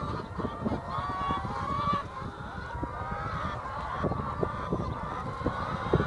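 A flock of brown laying hens clucking and calling over one another, a steady chorus of overlapping drawn-out calls, with a few short knocks, the sharpest near the end.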